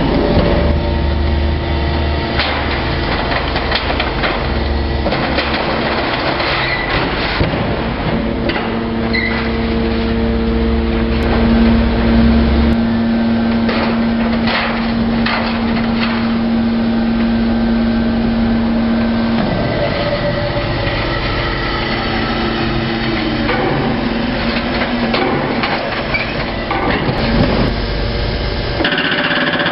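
Hydraulic metal scrap baler working: a low steady machine hum with a whine that comes in about a quarter of the way through and stops about two-thirds through, amid repeated clanks and knocks of scrap metal.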